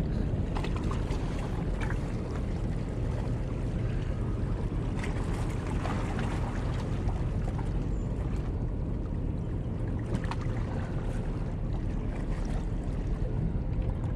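Wind rumbling on the microphone over water lapping at the pier's rocks, with a few faint ticks scattered through.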